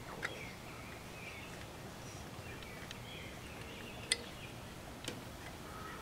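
Faint outdoor background with light bird chirping, and a few sharp clicks from a washing-machine control circuit board being handled, the loudest about four seconds in.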